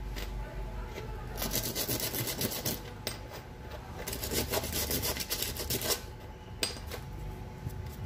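Quick back-and-forth scraping strokes of a small metal blender part being sanded, in two bursts of a second or two each, with a couple of sharp clicks between them.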